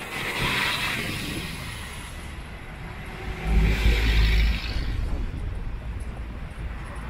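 Ride noise aboard a tourist road train: the towing vehicle's engine runs and the carriages roll along. About three and a half seconds in comes a louder rumble with a hiss.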